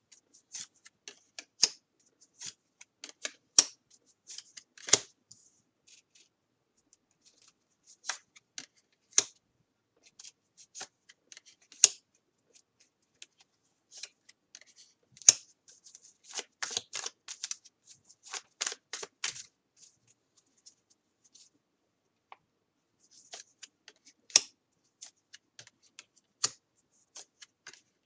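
Tarot cards being handled and laid out on a table: irregular short snaps, flicks and slides of card stock, some in quick clusters, with short pauses between.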